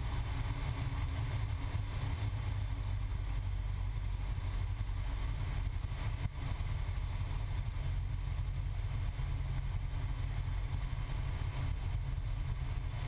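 Cessna 172's piston engine and propeller droning steadily, heard inside the cockpit. A brief click with a short dip in level comes about six seconds in.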